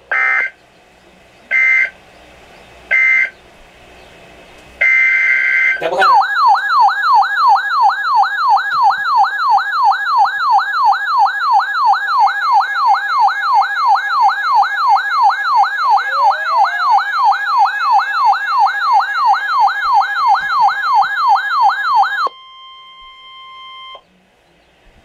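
Emergency Alert System data bursts: three short chirping bursts closing the first warning, then a longer burst opening the next. A loud warbling alert siren follows, sweeping up and down about three times a second for some sixteen seconds. It gives way near the end to a brief steady single tone, the weather radio's attention tone.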